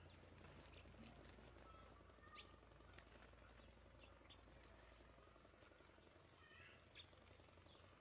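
Faint, scattered chirps of house sparrows, a few short calls a second or so apart, over a low steady rumble.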